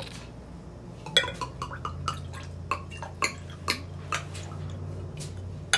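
Wine glugging out of a bottle's neck as it is poured into a cup, a run of about ten irregular gurgling clicks starting about a second in.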